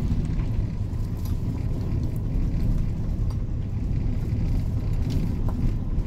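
Car driving: a steady low rumble of road and engine noise heard from inside the cabin.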